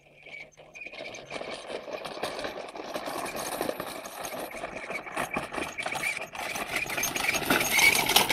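A child's pedal go-kart rolling over dry grass and straw, its wheels and frame rattling and crunching; the sound builds steadily louder as the kart comes closer.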